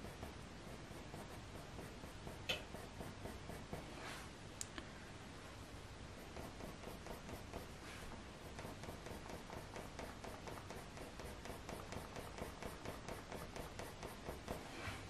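Faber-Castell Polychromos coloured pencil drawing short, quick, even strokes on smooth hot-press watercolour paper, several strokes a second in the second half, with a few sharper taps in the first few seconds.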